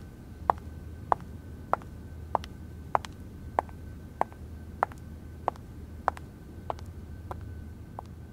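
Sharp, evenly spaced ticking, about three ticks every two seconds, over a faint steady low hum.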